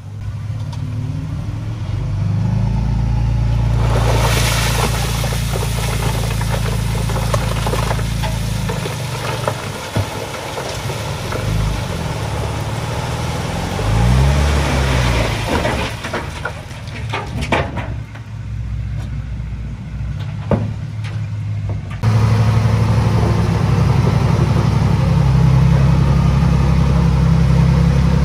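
Dump truck's diesel engine running as its bed tips and a load of broken rock slides out, a long spell of noise with a few knocks near the end; the engine revs up and back down once midway. After a sudden change, a diesel engine runs steadily.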